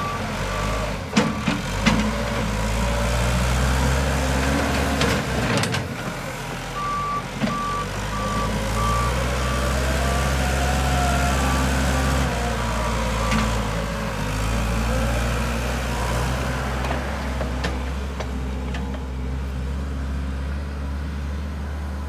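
Case 580M backhoe loader's diesel engine running as the machine manoeuvres, its note shifting a couple of times, with the reverse alarm beeping for a stretch in the middle. A few sharp knocks sound in the first six seconds.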